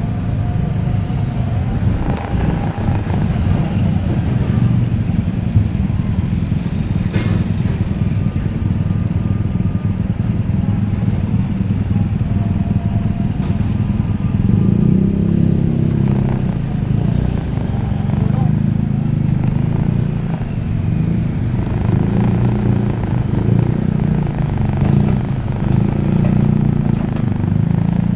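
Motor vehicle engines running steadily on a road, motorcycles among them, giving a continuous low rumble.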